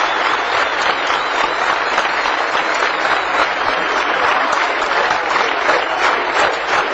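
A large crowd applauding: dense, steady clapping that goes on without a break.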